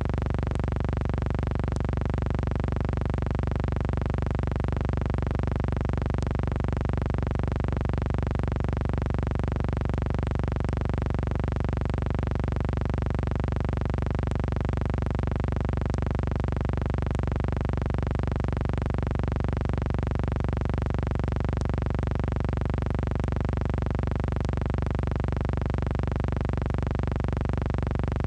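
A steady electronic drone with many overtones, holding one unchanging chord-like tone without pause.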